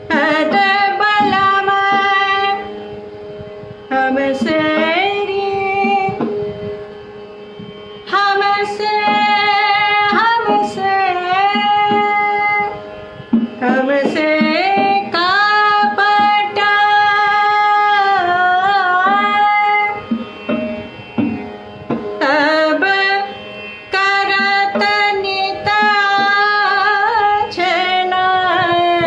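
A woman singing solo in Indian classical style: long held notes and sliding ornaments, sung in phrases with short breaks between them, over a steady drone.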